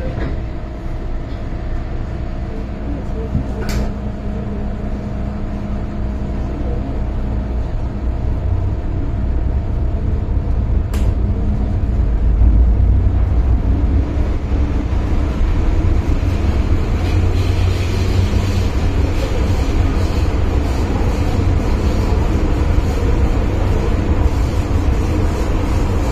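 Inside an MTR M-Train car running in the tunnel: steady running rumble of the train that grows louder as it picks up speed over the first dozen seconds. Two sharp clicks are heard, one about four seconds in and one about eleven seconds in.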